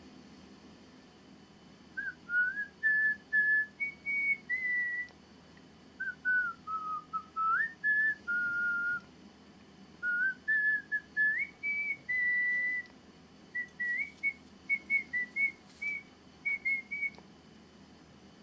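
A person whistling a tune in clear single notes: three short phrases, then a run of brief notes near the end.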